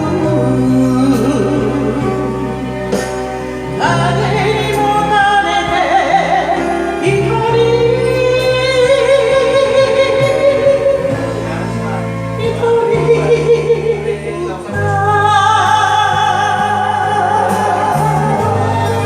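Enka karaoke music playing: a melody with vibrato over sustained bass notes.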